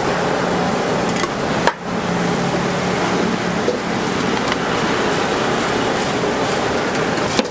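Steady rushing noise of a street-food stall's cooking area, with a faint low hum through the first half and a short break about two seconds in.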